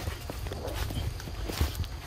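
Footsteps on a forest floor of dry leaf litter, an irregular run of low thumps with light rustling and clicks, louder about one and a half seconds in.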